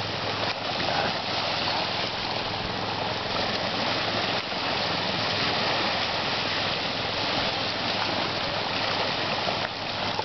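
Steady rushing noise of small sea waves washing on the shore, with a faint low hum underneath.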